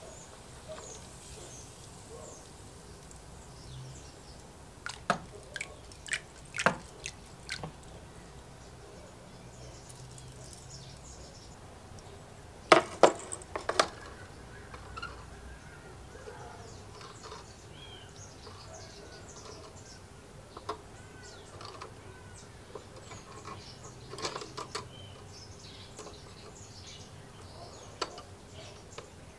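Metal rods and wire hooks clicking and knocking against plastic tub rims and each other as plating parts are handled, with a few light drips of liquid. The loudest knocks come in a quick cluster about halfway through.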